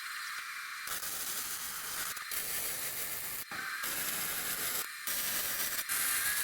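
Welding arc from a Lincoln Electric 140MP welder, a continuous hiss and sizzle broken by several short stops between beads.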